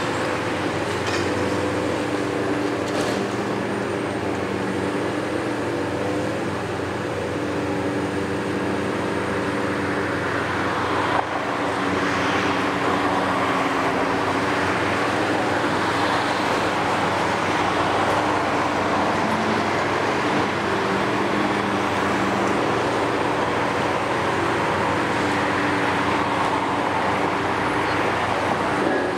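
Heavy demolition excavators' diesel engines running under load with hydraulic work, a steady pitched hum throughout. A single sharp knock about eleven seconds in, after which a harsher noisy layer from rubble being worked joins.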